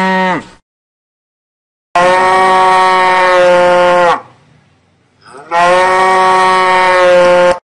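Cow mooing: the end of one moo, then two long, steady moos of about two seconds each, each dropping in pitch as it ends.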